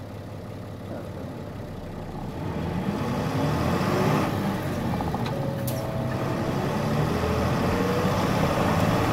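Running sound of a 1999 Nissan Diesel Space Runner (KC-RM211GAN) non-step bus under way. The diesel engine note grows louder about two and a half seconds in as the bus accelerates, with a faint whine rising in pitch as it pulls.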